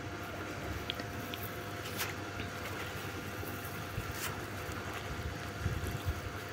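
A cast net being hauled up out of a muddy pond by hand, with faint water sounds, over a steady low rumble. A few sharp faint ticks are heard, and some soft thumps come near the end.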